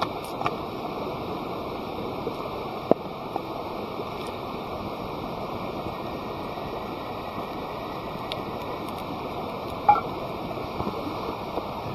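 Wood campfire burning with a steady rushing noise and a few sharp crackling pops, the loudest about three seconds in and near ten seconds.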